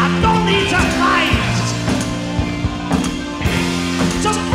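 Rock background music with guitar, held chords under a wavering melodic line.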